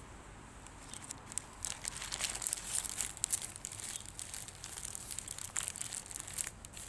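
Paper bag around a pie crinkling and rustling as it is handled, starting about a second in and going on in dense crackles.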